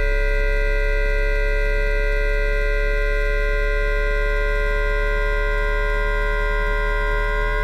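VVVF inverter and traction motor of a JR East E2-1000 Series Shinkansen (3-level IGBT inverter) in asynchronous PWM mode during acceleration, picked up magnetically with an inductor coil so that only the electrical whine is heard. It is a steady whine of several fixed tones over a low hum, which begin to rise in pitch near the end.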